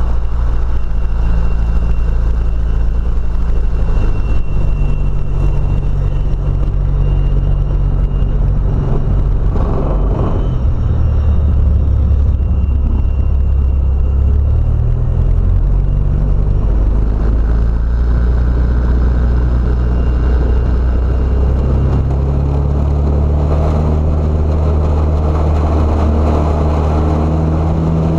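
Light single-engine plane's piston engine and propeller heard from inside the cockpit at low power on the ground: a steady low drone whose pitch steps up and down a few times as the throttle is moved, rising near the end.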